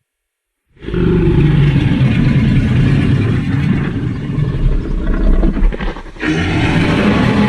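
Film Giganotosaurus creature sound effect: after a moment of silence, a loud low roar lasts about five seconds, and a second one starts about six seconds in.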